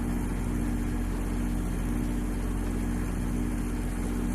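Refrigerant compressor running steadily with a constant low hum, kept going after a hard start with a starting capacitor added alongside its run capacitor.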